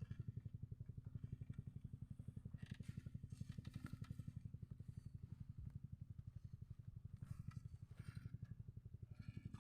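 A small engine running steadily and faintly, with an even, fast pulse.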